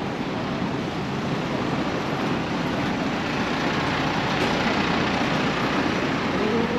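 Steady city road traffic: a continuous hum of passing vehicles and engines.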